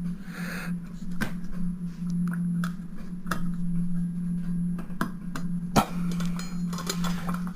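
Scattered sharp metallic clicks and taps of small screwdrivers and clock parts being handled, a few separate clicks spread over the stretch with the loudest near the end, over a steady low hum.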